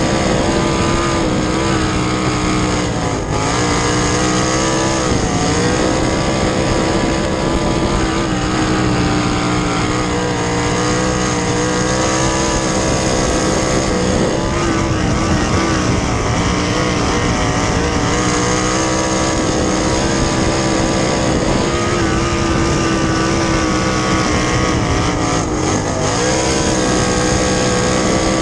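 Winged dirt sprint car's 410 cubic-inch V8 running hard at race pace, heard from inside the cockpit. Its pitch dips briefly several times as the driver lifts for the corners, then climbs back under throttle.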